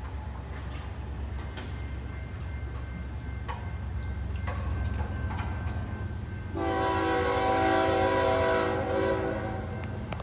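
Diesel freight locomotive's air horn sounding one long chord of several notes for about two and a half seconds, starting past the middle, over a steady low rumble.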